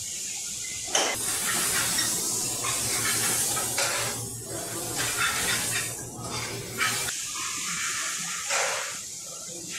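Restaurant kitchen work noise: a steady hiss with a low hum under it from about a second in until about seven seconds, and short swells of hiss near the end.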